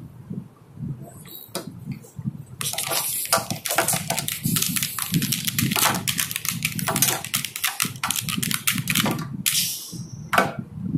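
Plastic action figures being clashed and rubbed together in a mock fight close to the microphone: a rapid run of knocks and scuffs starting about two and a half seconds in, lasting to around nine seconds, with one more knock near the end.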